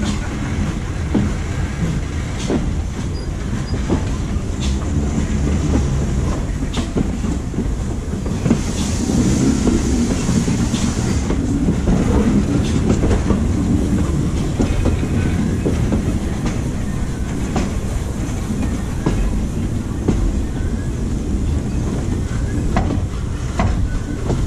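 A steam-hauled passenger train running along the track, its carriage wheels giving a steady rumble with irregular clicks over the rail joints. About nine seconds in a hiss rises for a couple of seconds.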